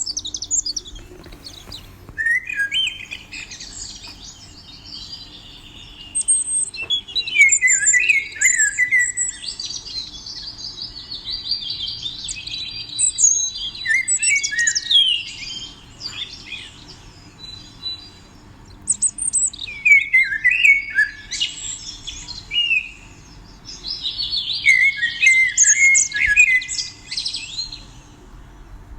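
A small songbird singing: bursts of rapid chirps, trills and quick up-and-down glides, several phrases a few seconds long with short pauses between them.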